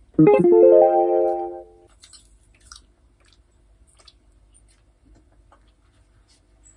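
An edited-in musical sound effect: a quick rising run of plucked, harp-like notes that rings for about a second and a half. After it, faint chewing and small clicks and rustles.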